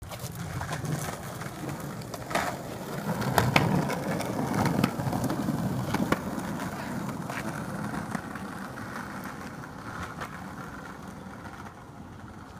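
Skateboard wheels rolling on a concrete street, a steady rumble with several sharp clicks, loudest a few seconds in and fading toward the end as the board rolls away.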